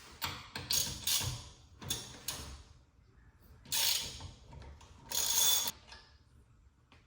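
A series of short mechanical scrapes and clatters, about seven in all, the loudest two about four and five and a half seconds in.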